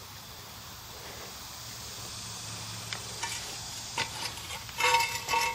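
Footsteps through grass, then near the end a quick run of sharp metallic clinks with a ringing tone as a cast iron ingot is knocked out of its iron ingot mold during the shakeout.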